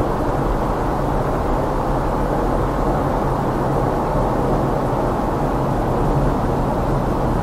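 Steady drone of a car on the move: road and engine noise, low and muffled, with no change in level.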